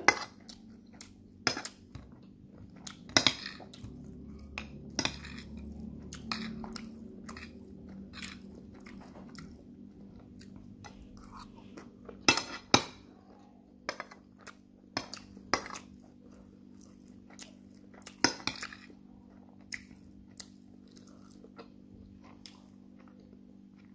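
A metal fork clinking and scraping against a plate of rice, in scattered sharp clinks, a few of them loud, with chewing and mouth sounds between them. A faint steady hum lies underneath.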